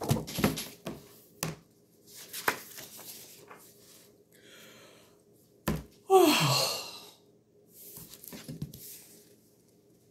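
A woman yawning: one long yawn about six seconds in, its voiced tone sliding down, with breathy sighing before and after it. A few knocks and rustles come near the start.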